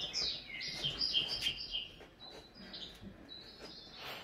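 Miniature schnauzer puppies squeaking and whining in short, high-pitched chirps. The calls are thick in the first two seconds, then thin out to a few fainter ones.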